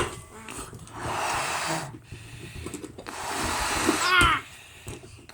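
A person blowing up a balloon by mouth: two long, breathy puffs of air into it, about a second each, with a brief squeak near the end of the second.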